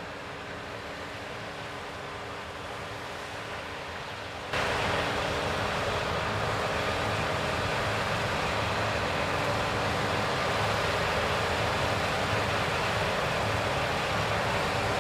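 CLAAS Lexion 7500 combine harvester running steadily while harvesting wheat: a dense rushing machine noise with a steady low hum. The sound jumps abruptly louder about four and a half seconds in and holds there.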